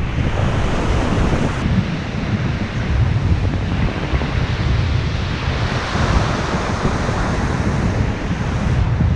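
Breaking surf washing and foaming around the camera, with strong wind buffeting the microphone in a steady low rumble. The wash swells a little about six seconds in.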